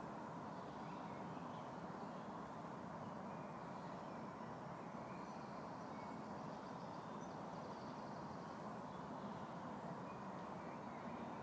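Steady outdoor background hum of distant road traffic, with faint, scattered bird chirps over it.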